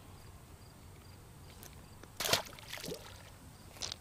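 A released largemouth bass splashing into shallow water about halfway through, followed by a couple of smaller splashes.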